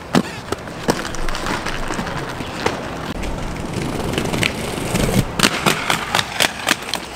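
Aggressive inline skates rolling on pavement, with scattered clacks and knocks from wheels and frames, and a quick run of sharp clacks between about five and seven seconds in.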